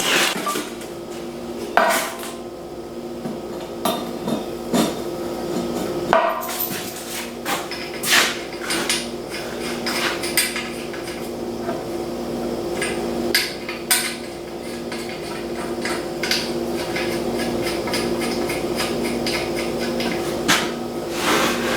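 Metal knocking and clanking in irregular strikes, over a steady hum.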